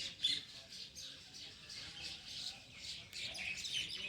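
Several small birds chirping and twittering together, a busy, overlapping chorus of short high calls.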